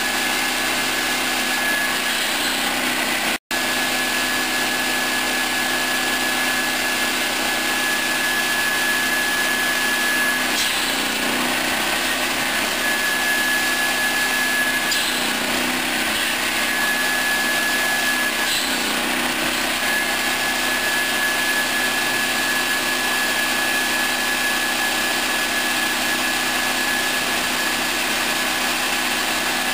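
Tilting-table firewood saw with a 700 mm circular blade, driven by a 13 hp petrol engine, running steadily with a high blade whine. Three times, about 10, 15 and 19 seconds in, the whine dips briefly as the blade bites through a log. The sound cuts out for an instant about three seconds in.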